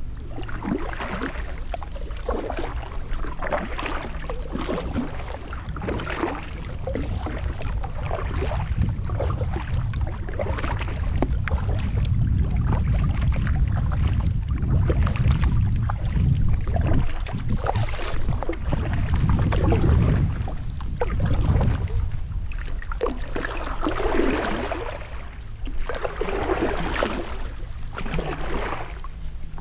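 Kayak paddle strokes dipping and splashing in the water, roughly one a second, with bigger swishes near the end. A low rumble runs underneath, strongest in the middle.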